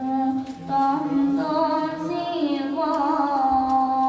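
A boy singing an ilahija, a Bosnian Islamic devotional song, unaccompanied, holding long notes with small ornamental turns.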